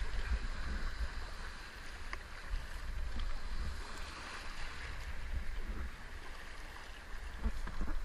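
Sea surf and water splashing and rushing along the hull of an open canoe being paddled through breaking waves, with wind buffeting the microphone as a low rumble.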